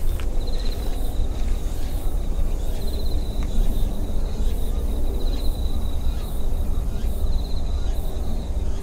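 Outdoor ambience: a steady low rumble, with a thin high tone running through it that trills briefly about every two seconds.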